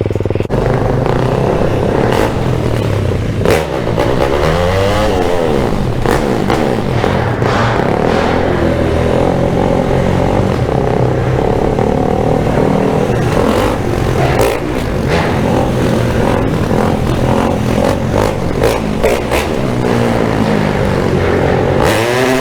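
Motorcycle engine running on a rutted dirt trail, its revs rising and falling with the throttle, with scattered knocks and scrapes.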